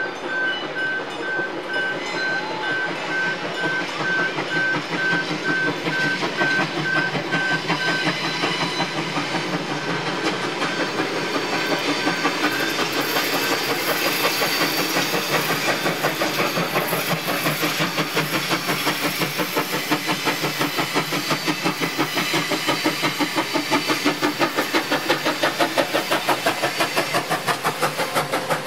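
Steam locomotive BB18¼ 1089, a 4-6-2 Pacific, working hard as it draws near and passes. Its exhaust beats come as a regular chuffing over a hiss of steam, growing louder and more distinct through the second half.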